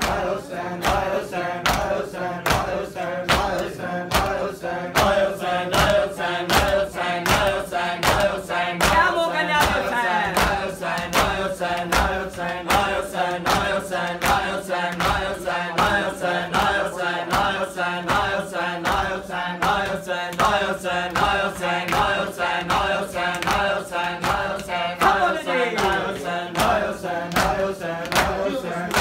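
A group of men chanting a noha in unison, with open hands slapping on their chests in a steady beat: matam, Shia mourning chest-beating.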